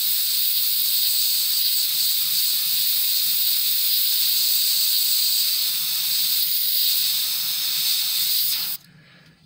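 Gravity-feed airbrush spraying: a steady high hiss of compressed air through the nozzle that cuts off suddenly near the end.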